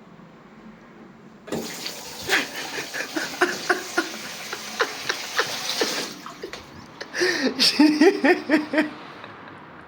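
Water running and splashing with many sharp ticks, starting suddenly about a second and a half in and stopping about six seconds in. It is followed by a run of short, loud, pitched vocal sounds that bend up and down.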